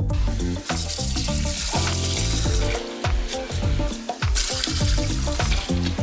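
Water pouring from a plastic bucket into a shallow cement basin, a steady splashing rush, under background music with a steady beat.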